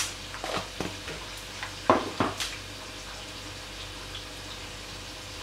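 Spice jars being handled over a plastic mixing bowl: a few short clicks and knocks in the first couple of seconds, the loudest about two seconds in, then only a steady low hum and hiss.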